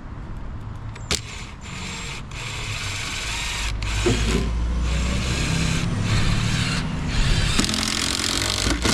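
Power drill driving screws, running in several long bursts with brief pauses between them, after a sharp click about a second in.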